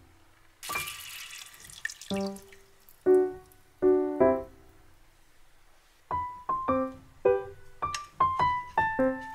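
Light background piano music, a few notes at a time. About a second in comes a short hissing splash of milk being poured into the soup in a frying pan.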